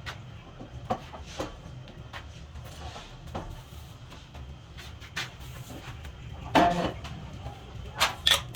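Light clicks and knocks of small parts being handled at a bulb-holder workbench over a steady low machine hum, with one louder knock about two-thirds of the way through.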